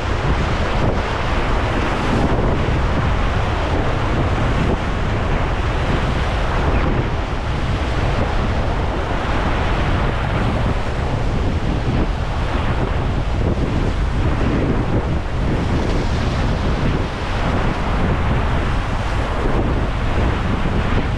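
Whitewater river rapids rushing and splashing around a paddled raft, with wind buffeting the microphone.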